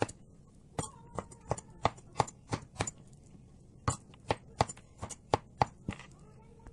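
Kitchen knife chopping tomatoes on a plastic cutting board: a run of sharp knocks, roughly three a second, with a pause about three seconds in and a stop about six seconds in.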